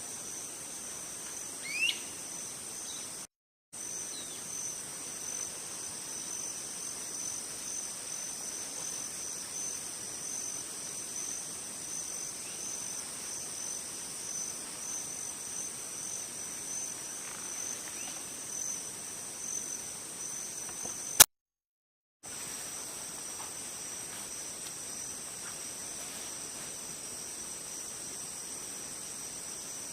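A steady, high-pitched insect chorus trills on continuously, with a couple of short rising bird chirps in the first few seconds. The sound cuts out briefly about three seconds in, and again about twenty-one seconds in just after a sharp click.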